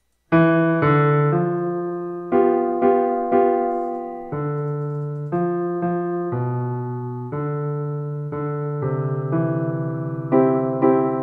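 MuseScore 3's built-in piano sound playing back a simple two-hand piano score, a melody over chords beginning a moment in. The score carries sustain-pedal markings, so notes ring on into one another, most of all near the end, giving the slightly blurred sound of pedalled piano.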